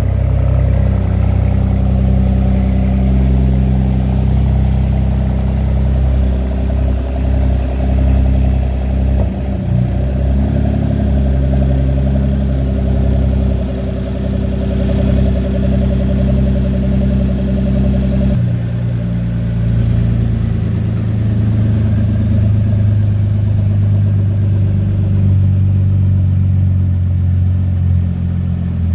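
Audi 3.0 TFSI V6 running with no exhaust system fitted, on a test run after a timing chain replacement. It idles with an open, unsilenced note, and its low hum changes abruptly about eighteen seconds in.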